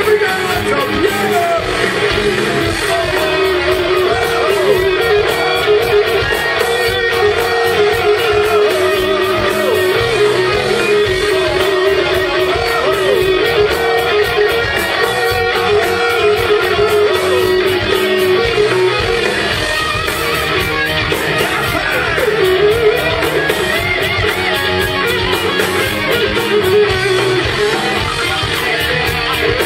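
Live heavy metal band playing: electric guitars carrying a winding melodic line over bass and drums with fast, busy cymbals.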